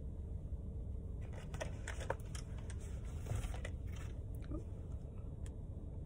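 Small clicks and rustles of makeup tools and containers being handled, bunched about one to four seconds in with one more click later. A steady low rumble of the car cabin runs under them.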